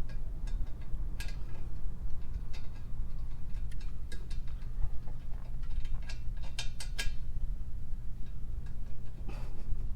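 Light metallic clicks and clinks of nuts and bolts being handled and threaded on by hand at the exhaust mount, with a quick run of clicks about six and a half seconds in, over a steady low hum.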